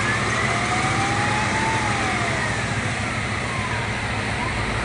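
Emergency vehicle sirens wailing: two tones at different pitches, each slowly rising and falling, over the steady low rumble of a car on the road.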